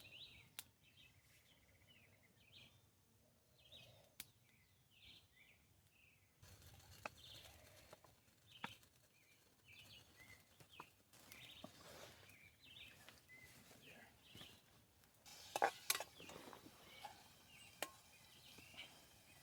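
Quiet forest ambience: small birds chirping repeatedly, with scattered faint knocks and clicks, and a few louder knocks near the end.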